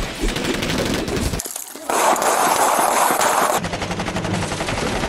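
Rapid automatic gunfire from film shootout scenes, a dense stream of shots. It drops briefly about a second and a half in, then resumes as another clip begins.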